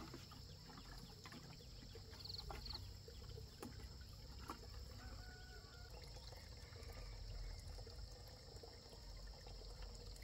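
Faint pouring and trickling of water as plants are watered, with scattered small clicks.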